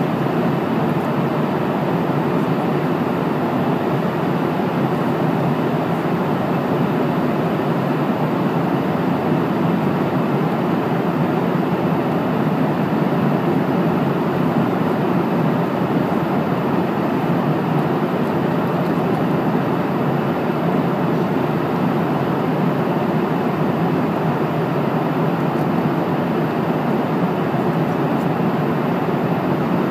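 Steady cabin noise of an airplane in flight, the even rush of its engines and the air streaming along the fuselage, while the plane descends.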